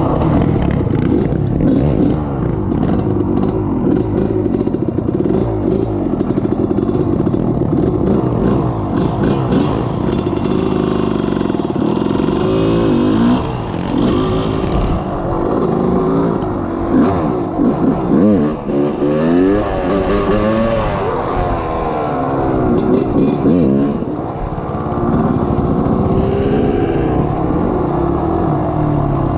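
Yamaha YFZ450R sport quad with a full FMF exhaust running hard under load. Its engine holds a high pitch at first, then is revved up and down over and over around the middle, the pitch rising and falling, before settling steadier near the end.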